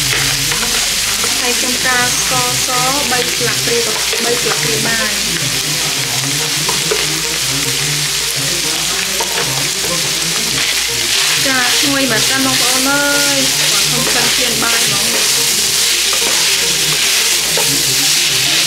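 Minced pork and prahok (fermented fish paste) frying in a non-stick pan, sizzling steadily while a wooden spatula stirs and scrapes through it.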